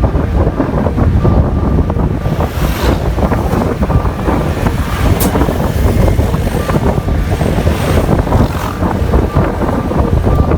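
Loud wind buffeting the microphone over the rumble of a moving road vehicle.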